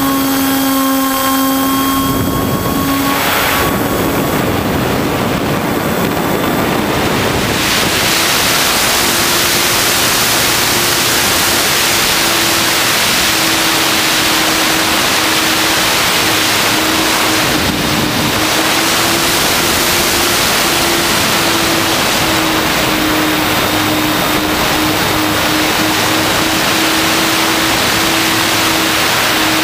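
RC plane's motor and propeller in flight, heard from the plane's onboard camera: a steady drone whose pitch shifts a little up and down with throttle, under heavy wind rush from the airflow.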